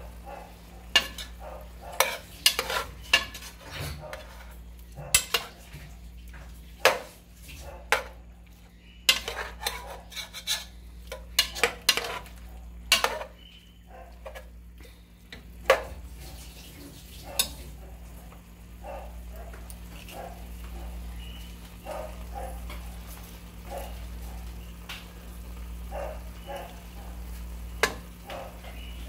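Metal spoon stirring beef in an aluminium pressure cooker, clinking and scraping against the pot in irregular strikes, dense in the first half and sparser after about 18 s, with the meat frying in the pot.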